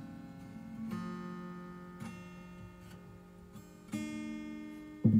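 Background music: an acoustic guitar strumming slow chords that ring on between strums.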